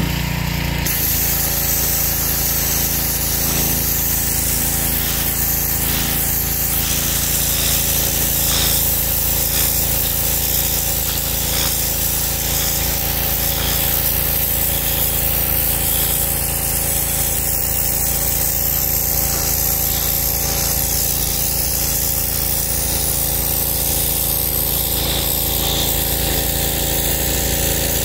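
Wilks USA TX625 petrol pressure washer running steadily: its 7 hp four-stroke engine under load beneath the hiss of the turbo nozzle's jet blasting onto concrete paving.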